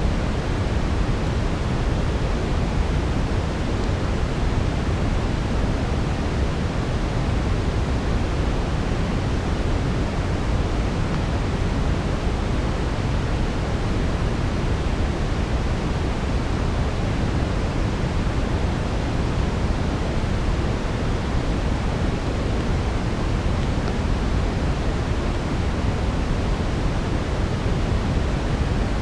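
Steady brown noise: an even, deep hiss weighted toward the low end, without change or distinct crackles.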